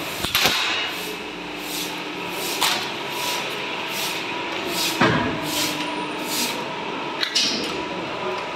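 Steady workshop machinery noise with four sharp knocks of stainless steel sheet being handled at a press brake, the loudest about five seconds in. A high hiss pulses about once a second underneath.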